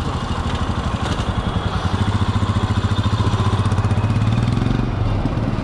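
Royal Enfield Himalayan's 411 cc single-cylinder engine running at low revs close by: a rapid, even thump that swells a little about three to four seconds in.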